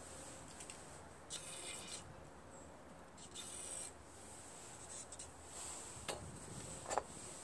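Two short hissing bursts of aerosol carburetor cleaner sprayed through a straw into a small engine's carburetor to clear its jets and passages, each lasting about half a second. Two light knocks follow near the end, the second the loudest sound here.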